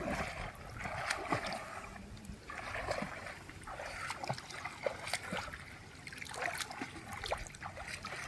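Water splashing and trickling in uneven surges, with scattered small knocks.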